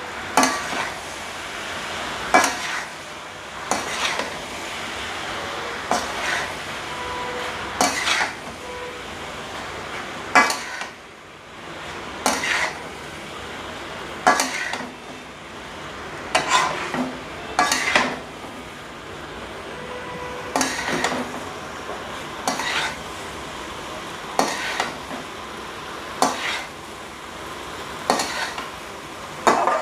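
Metal spatula scraping and knocking against a metal wok as noodles and vegetables are stir-fried over high heat, with a strike about every two seconds. A steady sizzle of frying runs underneath.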